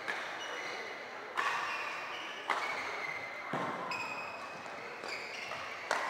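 Badminton rally: rackets striking a shuttlecock about once a second, six hits in all, each echoing in a large hall, with court shoes squeaking on the floor between hits.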